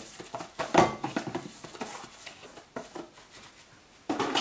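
Thai fish cake paste being scraped out of a plastic tub into a bowl by a hand in a plastic glove: irregular wet scraping, squishing and glove rustling. A sharper knock comes just under a second in, and another louder cluster comes near the end.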